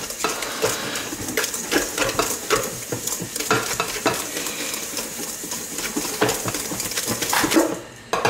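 Wire whisk beating butter and sugar in a stainless-steel bowl, a quick run of scraping strokes against the metal as the two are creamed together. It stops near the end.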